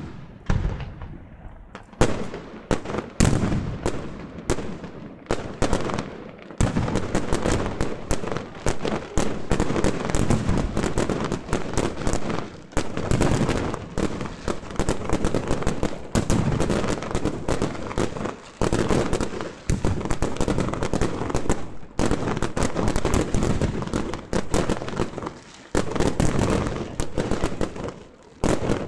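Fireworks display: dense, rapid volleys of bangs and crackling, going on almost without a break, with a few short lulls between barrages.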